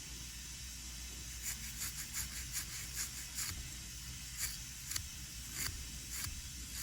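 Toothbrush bristles scrubbing a soldered circuit board wet with isopropyl alcohol, a series of short brushing strokes, quick at first and then further apart, to clear leftover solder flux.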